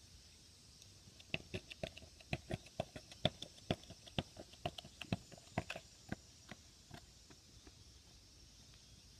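A quick, irregular run of light clicks or taps, about four a second, starting about a second in and thinning out after about six seconds.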